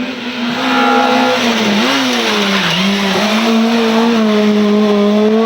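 Rally car at speed on a special stage, its engine held at high revs and getting louder about a second in. The engine pitch dips briefly and climbs back around two seconds in.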